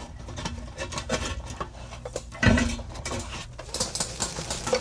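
A stainless steel charcoal basket being shaken inside a kamado grill, its leftover charcoal rattling and clinking against the metal as the ash sifts down through it. There is a louder knock about halfway through and a quick run of rattles near the end.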